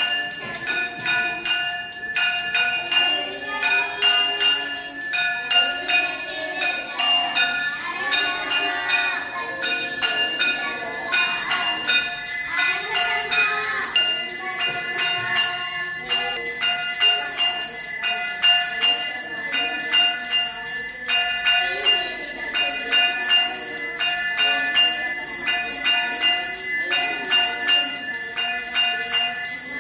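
A brass puja hand bell (ghanta) rung continuously through the aarti. It strikes rapidly and without a break, its ring holding steady over the strokes.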